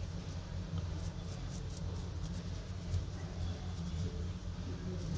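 Faint scratchy scrubbing of a small brush cleaning a phone's charging board with isopropyl alcohol, strokes coming in short runs, over a steady low background hum.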